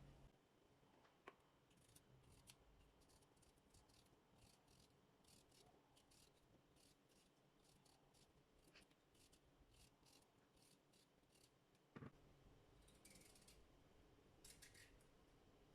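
Very quiet household handling sounds: a run of faint, sharp little clicks or snips, a single knock about twelve seconds in, and a few short scraping bursts near the end.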